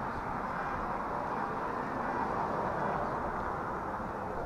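Steady outdoor background noise of road traffic, with no distinct events.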